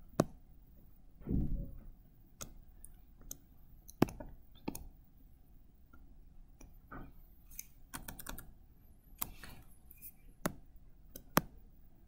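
Irregular sharp clicks of someone working a computer, about a dozen, with a quick run of clicks around eight seconds in and a soft low thump about a second and a half in.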